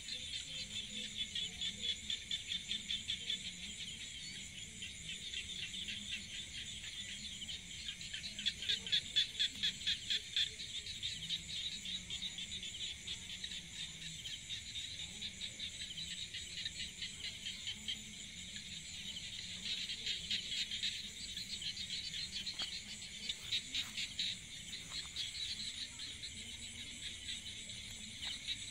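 A chorus of insects trilling, a continuous high-pitched, rapidly pulsing sound that swells louder around two, nine and twenty seconds in.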